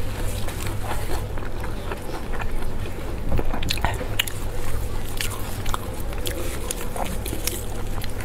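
Close-miked eating sounds: wet chewing and biting with many small clicks and crunches, mixed with the crinkle of lettuce leaves and plastic gloves being handled. A steady low hum runs underneath.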